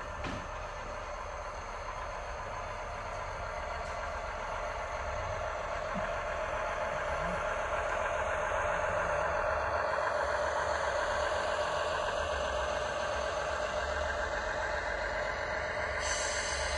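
Heljan O gauge AC railcar model's DCC sound decoder playing a diesel railbus engine running sound through its small onboard speaker. The sound grows steadily louder as the model runs toward the camera, and a higher hiss comes in near the end.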